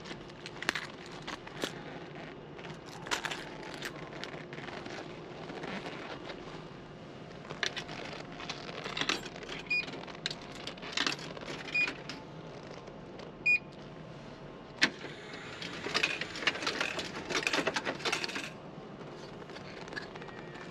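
Coins clinking and clicking as they are fed into a coin-operated carousel vending machine, with three short, high electronic beeps from the machine in the middle. A denser rattling clatter follows about three-quarters of the way through.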